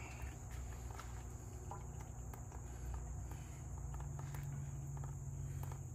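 Faint scattered ticks and drips of dual-clutch transmission fluid running out of the removed filter housing into a catch container, over a steady low hum and a steady high-pitched whine.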